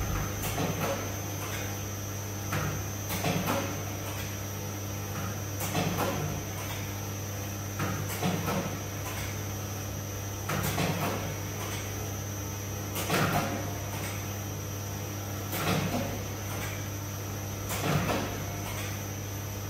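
FKY-500 dough cutting and rounding machine running with a steady motor hum. A short burst of rubbing and knocking comes roughly every two and a half seconds as each dough piece goes through the rounder.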